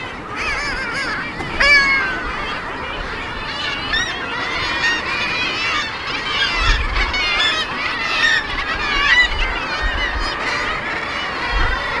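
Seabird colony on a bird cliff: many birds calling over one another in a dense, unbroken chorus of short rising-and-falling calls. A few brief low rumbles come through about halfway and near the end.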